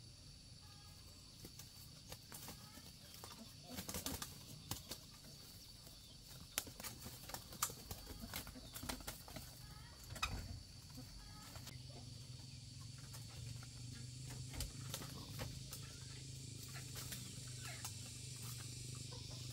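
Scattered light knocks and clatter of a wooden-slat bird cage and bamboo being handled, with chickens clucking faintly in the background. A steady high hiss runs underneath, and a low steady hum comes in about two-thirds of the way through.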